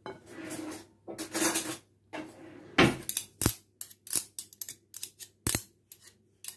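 Metal potato masher working boiled potatoes in a glass mixing bowl: a couple of soft squashing strokes in the first two seconds, then irregular sharp clinks as the masher knocks against the glass.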